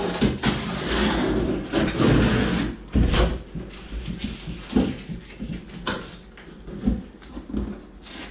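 A large cardboard box being handled and opened: a loud rustling, scraping stretch of cardboard and packing tape in the first few seconds, then a handful of short knocks against the box as the tape is picked at.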